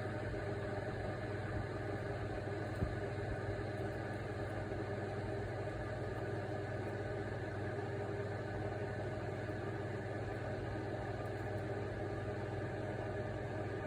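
Steady low mechanical hum, even throughout, with one short click about three seconds in.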